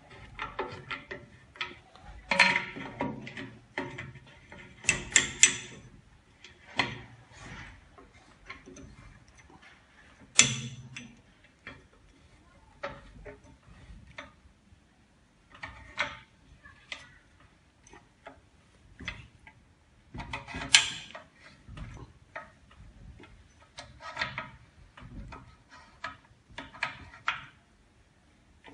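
Clicks and knocks of the orange clamping handles being turned and repositioned by hand to lock the steel door of an OCA bubble-removing autoclave. They come in irregular clusters, with a few louder knocks among them.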